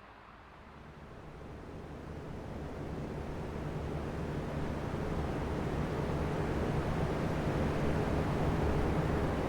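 Three electric oscillating fans running together, a steady airy rush with a low motor hum. The sound is quietest near the start and swells gradually louder as the fans swing round toward the microphone.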